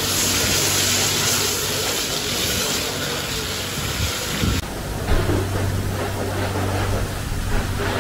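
Self-service car wash pressure lance spraying foam with a steady hiss over a low, even hum; the hiss drops off sharply a little past halfway.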